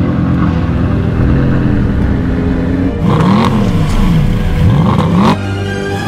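Alfa Romeo car engine revved hard while parked, its pitch rising and falling in about three quick throttle blips, after a few seconds of a steady drone.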